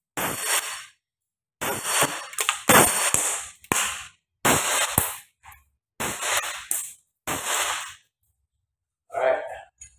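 East & Crane Glock 19 Taran Tactical Combat Master gas blowback airsoft pistol firing a string of about nine or ten shots, each a sharp crack that trails off briefly, spaced unevenly about half a second to a second apart. The shots stop about 8 seconds in, when the magazine runs empty and the slide locks back.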